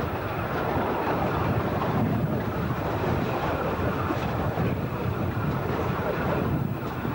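Steady running noise of a passenger train moving along the line, heard on board with wind buffeting the microphone.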